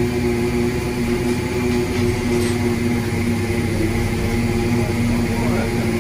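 Fishing boat's engine and machinery running with a steady drone that holds two fixed tones over a low hum.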